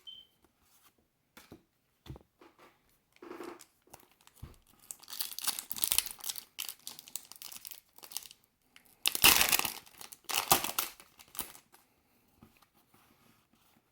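Foil wrapper of a Pokémon card booster pack crinkling and tearing in two loud spells, the louder one about two-thirds of the way through, with light handling clicks before them.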